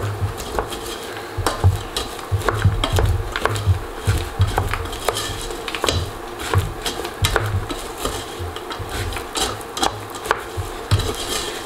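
Wooden spoon stirring sugar-coated hazelnuts and almonds in a stainless steel saucepan: a steady run of irregular scrapes and clicks as the nuts tumble against the metal. The grainy sugar coating is slowly melting back into caramel.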